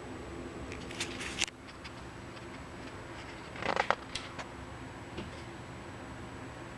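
Pages of a paper service manual being handled and turned: two brief papery rustles, one about a second in and one just past the middle, with a few faint ticks over a steady low hum.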